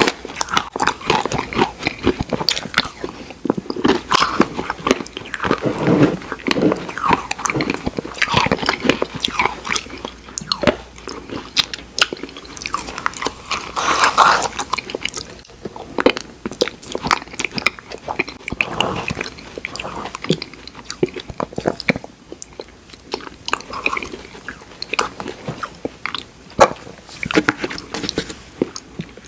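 Close-miked eating of Oreo ice cream: chewing and biting with dense, irregular crunchy clicks from the Oreo cookie pieces.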